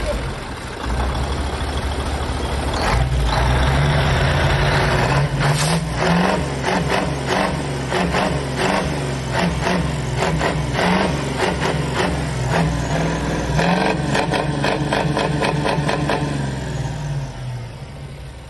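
Iveco TurboStar 190-48's 18-litre V8 diesel running loud through open pipes, revved in quick, repeated blips. It falls away near the end.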